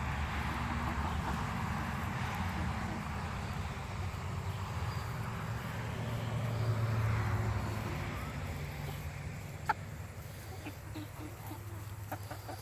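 Low rumble of a passing vehicle that swells to its loudest about seven seconds in and then fades away. A single sharp click sounds near ten seconds in.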